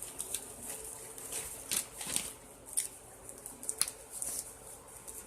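Rustling and crinkling of a parcel's packaging being handled and unpacked by hand, with scattered light ticks and taps.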